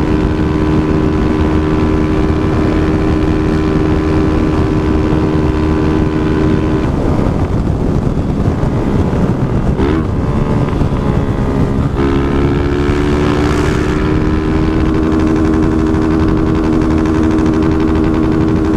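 Motorcycle engine running at highway speed under wind rush. About seven seconds in the steady engine note breaks up as the throttle is eased and the bike slows, then picks up again as a steady, slowly rising note about twelve seconds in.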